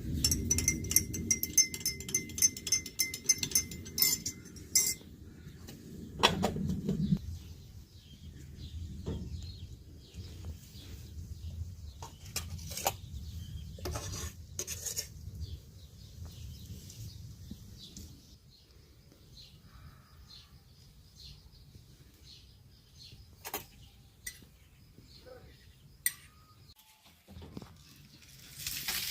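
Dishes and cutlery clinking and knocking: a quick run of ringing clinks for the first five seconds or so, then scattered clinks and knocks.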